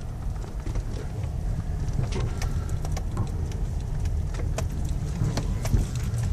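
Car driving slowly, heard from inside the cabin: a steady low rumble of engine and tyres, with scattered light clicks and knocks.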